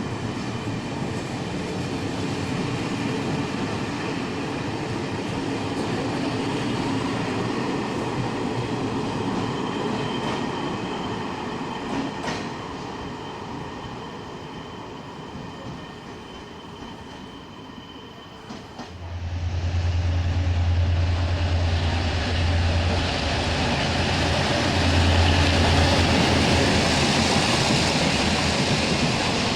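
Train running through a station, its rolling noise with thin whining tones slowly fading. About 19 seconds in, a louder train comes in with a deep steady hum under heavy rolling noise.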